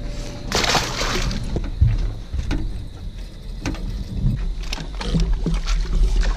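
A splash of water about half a second in, then scattered knocks and clicks of handling in a boat over a low rumble.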